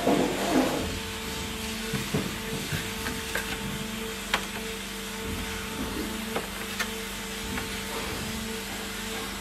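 Leather pieces rustling as they are picked up and handled, then a few light clicks as a metal square ruler is set against them on the bench, over a steady hum.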